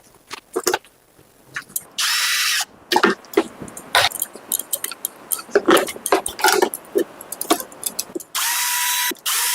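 Small power drill running in short bursts, once briefly about two seconds in and again near the end, each starting and stopping abruptly. Between the bursts come scattered clicks and knocks from tools and parts being handled.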